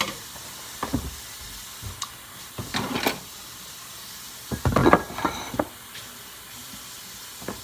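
Water from a tap running steadily into a sink, with short clatters and knocks of bowls and utensils being rinsed, busiest a little past the middle.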